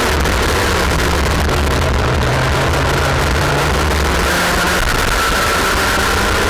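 Onboard sound of a Junior X30 kart's 125cc two-stroke engine at racing speed. The note drops near the start, then climbs slowly as the kart accelerates onto the straight.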